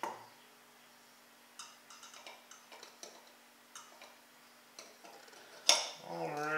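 Light, uneven clicks and taps of small metal parts as the flywheel and linkage of a model Stirling engine are fitted by hand, with one sharper click near the end.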